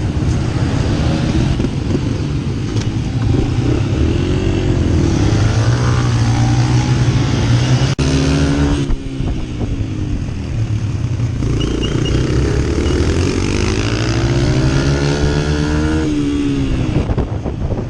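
Dirt bike engine revving under load, its pitch climbing and falling as the throttle opens and closes, with a sharp drop about nine seconds in and again near the end.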